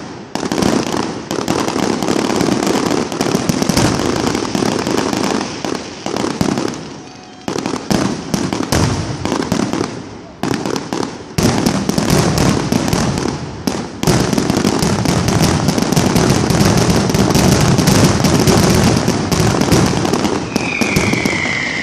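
Fireworks going off in a dense run of rapid crackling bangs, with a couple of short lulls. Near the end comes a high falling whistle.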